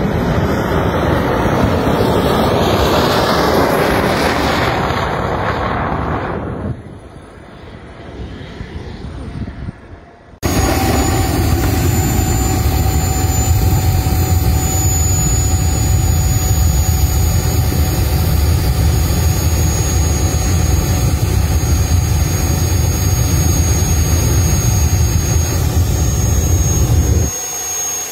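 Jet engine on a drag-racing buggy: a loud rush of noise that dies down about seven seconds in, then, after an abrupt cut about ten seconds in, the engine running steadily with a high-pitched whine over its noise.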